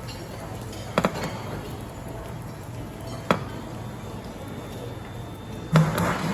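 Kitchen utensils knocking against cookware while cooking an omelette: a quick double knock about a second in, a single one a little after the middle, and a louder knock with a brief clatter near the end, over a steady low hum.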